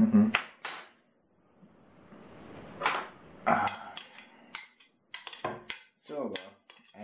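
Spoon scraping crème fraîche out of a plastic tub and knocking against the tub and the rim of a stainless-steel cooking pot: scattered clinks, taps and short scrapes, with a quiet gap about a second in.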